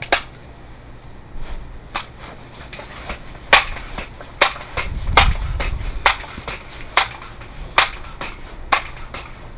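A string of sharp clicks and knocks, roughly one a second, as a spring air rifle is handled and its barrel broken open to cock it, with a low rumble about halfway through.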